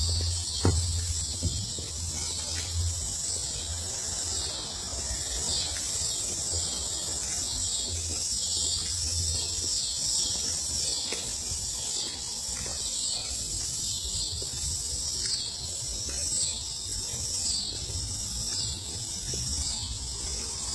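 A chorus of insects chirping steadily, made of quick repeating pulses, with a low hum that comes and goes through the first half and one sharp click about a second in.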